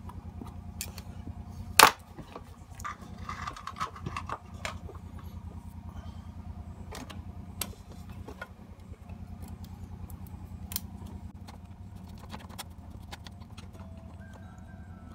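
Sharp metallic clicks, taps and scrapes of a screwdriver and metal parts on a CRT television chassis's metal heatsink as the horizontal output transistor is fastened, the loudest click about two seconds in. Under it runs a steady low hum with a fast flutter.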